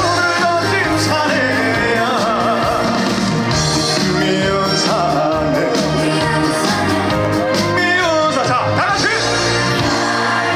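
Live trot song with band backing and a male voice singing over it, loud and steady.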